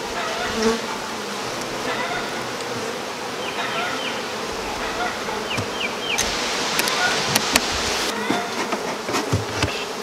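Honeybees buzzing steadily around an opened hive. A few sharp knocks and scrapes come in the second half as the wooden hive boxes are handled.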